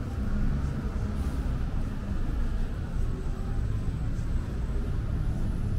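Steady low rumble of city road traffic, with no single event standing out.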